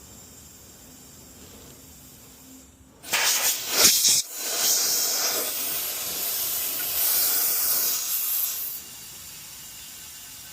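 Nitrogen blowing through an existing copper refrigerant line set: a loud hiss that starts about three seconds in with a few uneven spurts, then holds steady for about five seconds and cuts off sharply. The line is being flushed of old R22 oil so it can be reused with R-454B.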